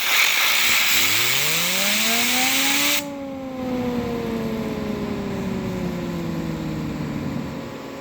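Compressed air blasting a fidget spinner: a loud hiss for about three seconds while the spinner's whine rises in pitch as it speeds up. The air then cuts off suddenly and the whine falls slowly as the spinner coasts down.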